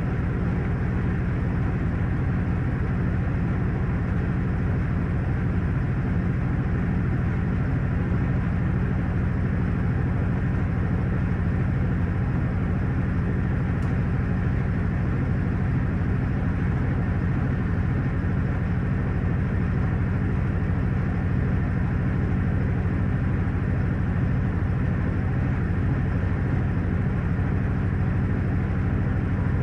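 Panasonic top-loading washing machine running with a steady, unchanging low hum.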